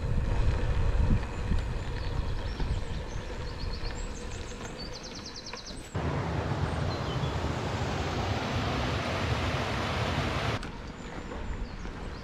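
Bicycle ridden along a forest track: wind buffeting the microphone over the rumble of the tyres, with a few faint high bird trills. About halfway it changes abruptly to a steady rushing hiss, which cuts off suddenly near the end.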